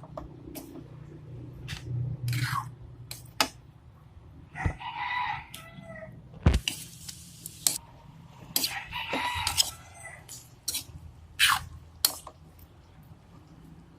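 A rooster crowing twice, about five and about nine seconds in, among sharp clicks and scrapes of a spoon against a cooking pan as the chicken is stirred.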